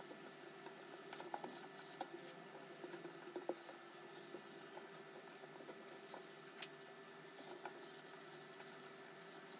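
Faint, scattered soft taps and clicks of hands pressing and rolling tapioca dough on a countertop, over a faint steady hum.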